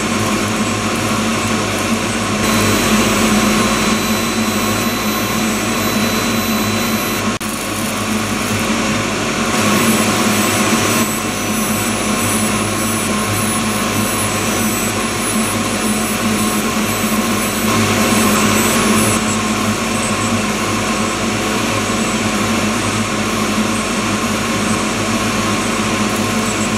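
Laser micromachining station running on carbon fibre reinforced polymer: a steady whirring hiss over a low hum, with thin steady tones, stepping louder or quieter a few times.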